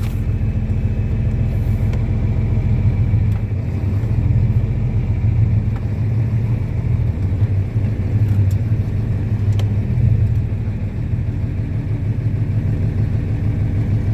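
John Deere 4630 tractor's six-cylinder turbocharged diesel running steadily, a low even rumble.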